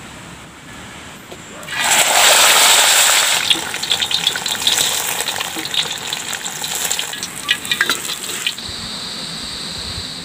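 Hot cooking oil sizzling in a wok as tilapia deep-fries. The hiss starts suddenly about two seconds in and goes on with dense crackling and spattering.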